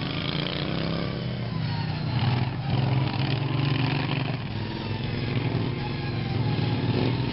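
Engines of modified racing lawn mowers running close by, their pitch rising and falling as they race.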